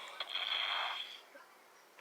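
A hissing sound effect from the animation played through a tablet's small speaker, carrying a steady high whistle-like tone. It stops about a second in, leaving faint background hiss.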